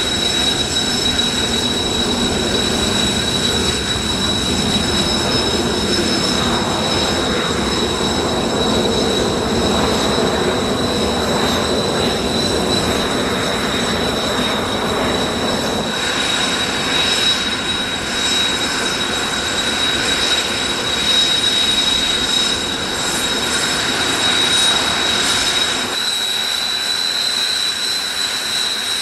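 Blue Impulse Kawasaki T-4 jets' twin turbofan engines running with a steady high whine over a rushing roar. The sound shifts about halfway through and again near the end.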